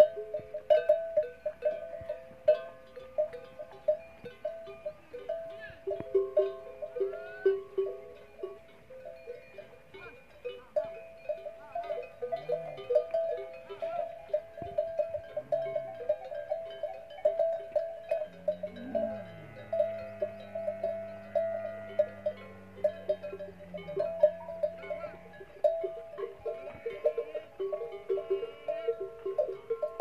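Camel bells clanking irregularly as a herd moves about, several bells jangling together without pause. A little past halfway, a long low animal moan sounds for several seconds.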